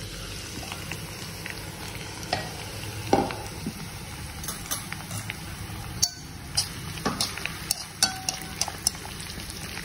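Sliced bitter gourd with curry leaves and green chilli frying in hot oil: steady sizzling broken by many sharp crackles and pops, with the pieces being stirred in the pan.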